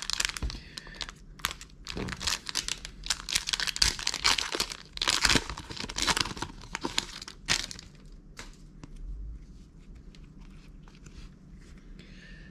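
A foil trading-card booster pack being torn open and crinkled by hand, a dense crackling rustle for most of the first eight seconds. It then dies down to faint rustles and clicks as the cards are handled.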